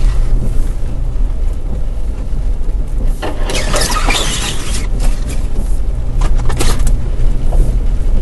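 A 4x4's engine running at low speed over a rough, leaf-covered dirt trail, a steady low drone. About three seconds in, a loud rushing scrape lasts about a second and a half, with a few shorter scrapes a little later.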